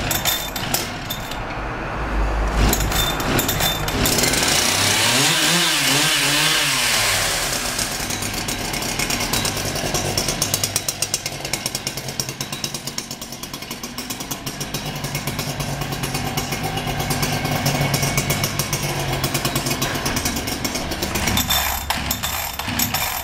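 Husqvarna 365 chainsaw's two-stroke engine running, its speed swinging up and down a few times a few seconds in, then running on steadily.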